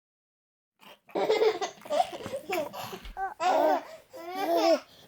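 Baby laughing in a run of short, pitched laughs that starts about a second in, after a moment of silence.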